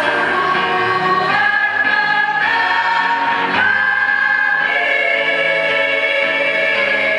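A choir singing, with long held notes that change pitch about every second.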